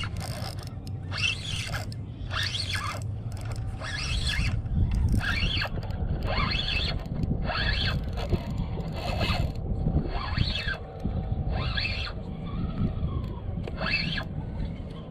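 Spinning reel being cranked against a hooked fish: a gear whir rasps with each turn of the handle, about once a second, while the rod stays bent under the fish's pull. Low wind rumble on the microphone underneath.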